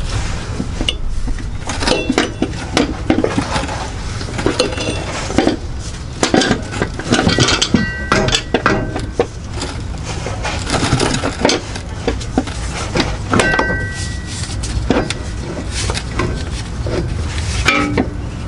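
Irregular metal clinks, knocks and scrapes as the front slip yoke of a replacement drive shaft is worked blind into the transmission housing of a 2009 Subaru Outback. Two short squeaks come in the middle.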